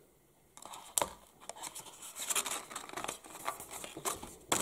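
Paper leaflets and a cardboard insert being handled and pulled from a small cardboard box: irregular rustling and scraping with sharp taps, starting about half a second in.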